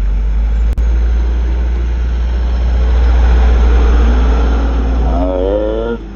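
4x4 off-road vehicle engine running under load, a heavy low rumble that swells through the middle and eases near the end. A wavering pitched sound comes in near the end.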